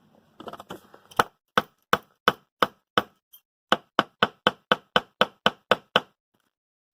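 A skateboard bearing being beaten into a wheel: about sixteen sharp knocks, roughly three a second with a brief pause midway, after a moment of faint handling.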